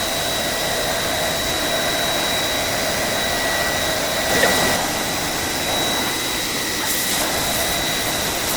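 Horizontal machining center milling mold steel in a high-feed roughing cut: a steady cutting and machine noise with a constant high whine. There is a short louder swell about halfway through.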